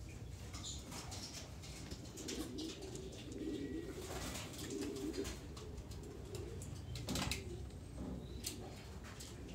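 Racing pigeons cooing in their loft. There is a run of low coos in the middle, and scattered sharp clicks and taps, with a louder one about seven seconds in.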